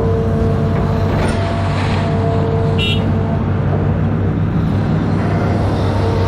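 Amphibious excavator's diesel engine running steadily, with a steady whine over the low drone and a brief high squeak about three seconds in.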